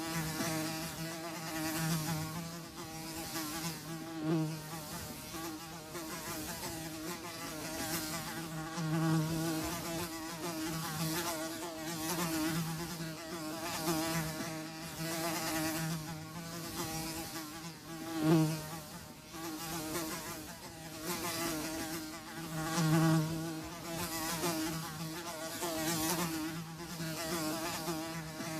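Flies buzzing, their wingbeat hum swelling and fading as they fly near and away, with a few louder passes.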